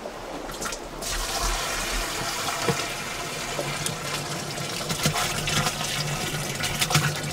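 Water gushing as a bucket is emptied into a plastic jerrycan, carrying caught trout across to it. The steady rushing pour starts about a second in.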